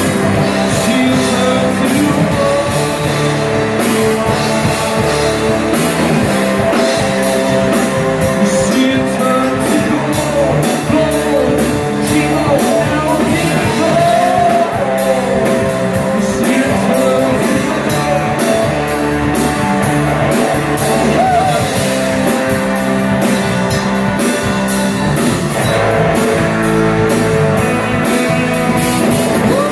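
Live rock band playing loudly, with two electric guitars, an electric bass and a drum kit, and a voice singing at times.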